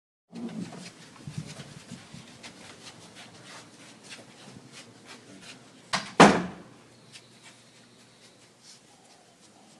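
Clicking and knocking from things being handled, with one loud thump just past the middle.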